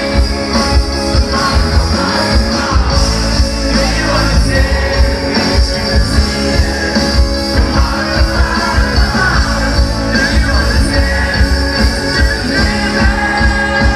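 Live rock band playing loudly through a festival PA, with electric guitar, a steady drum beat and a lead voice singing.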